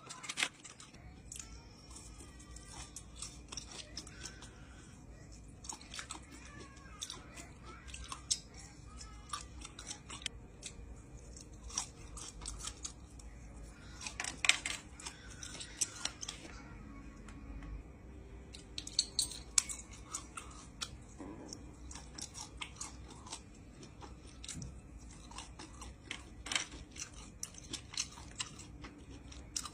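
A person chewing and biting grilled chicken satay, with frequent short wet clicks and smacks of the mouth. The louder bursts of bites come in clusters.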